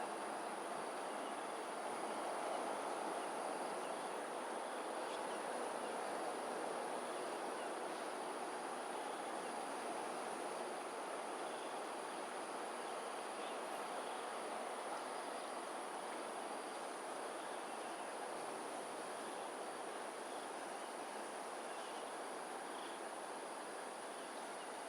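Insects trilling on one steady high pitch, with faint chirps, over a steady rushing background that eases slightly.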